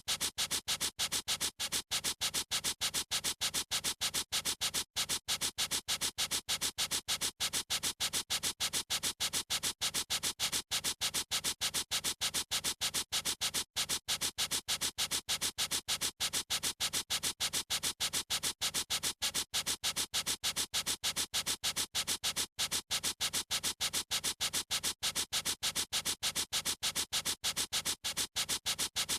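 A writing tool scratching across paper in rapid, evenly repeated strokes, about three or four a second, with a dry, hissy rasp.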